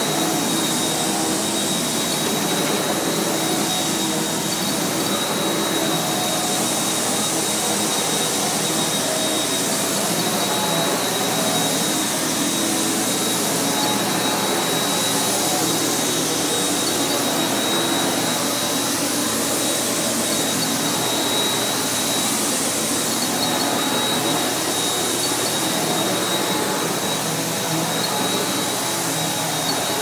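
Panasonic MC-UG223 bagged upright vacuum cleaner running steadily while pushed over carpet: a constant rush of suction with a thin, steady high motor whine.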